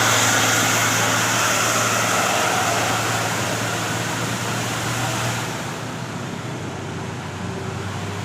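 A bus passing at speed, a loud rushing roar of engine and tyres with a steady low hum beneath. The roar dies down about five and a half seconds in, leaving a quieter road hum.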